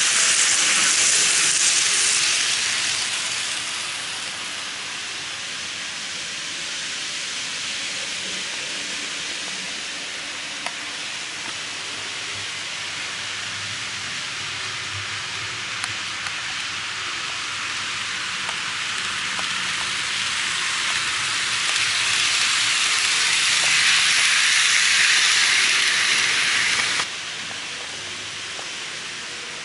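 N-gauge model trains running on the layout's track, giving a steady rushing rattle of small wheels on rails. It is louder as a train passes close at the start and again later, then drops sharply about 27 seconds in.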